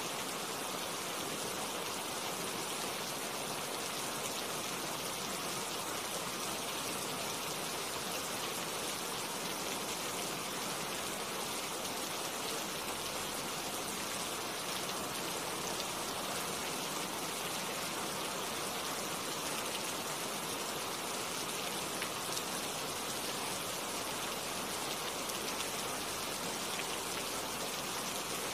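Steady rain falling on tree leaves: an even hiss of rain with many small drop ticks, unchanging throughout.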